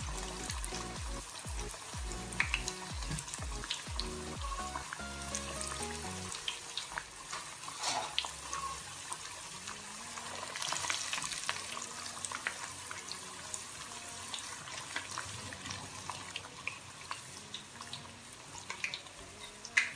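Ripe plantain chunks deep-frying in hot oil in a pot: a steady sizzle with crackling pops and occasional sharper clicks.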